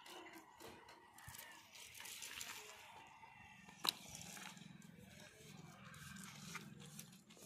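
Faint scraping and rustling of a PVC conduit pipe and cable being handled, with one sharp click about four seconds in and a low hum after it.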